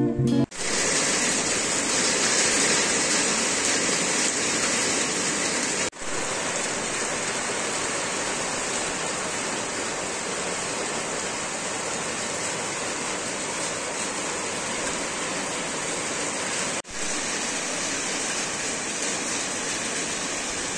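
Heavy rain pouring down: a steady, even rushing hiss of a downpour, broken by two brief gaps about six and seventeen seconds in.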